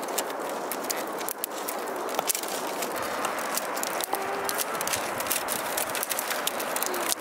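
Irregular clicks and rattles of bamboo strips being handled and woven into a basket, over a steady background rush.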